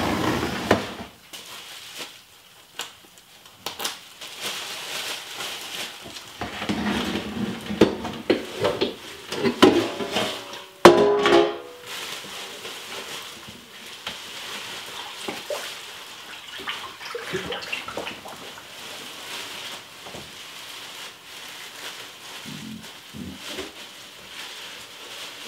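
Knocks, clatter and splashing as a brined turkey and its fruit are lifted from an enamel roasting pot and handled in a kitchen sink, busiest with a loud knock around the middle, with background music underneath.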